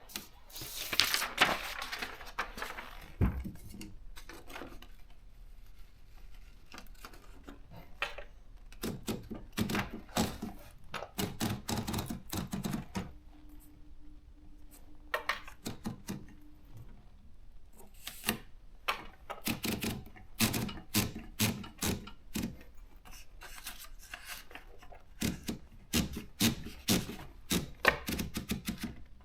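Brother JP 1 typewriter being typed on: type bars striking the platen in quick irregular runs of clicks with short pauses between. A low steady hum sounds for about three seconds midway.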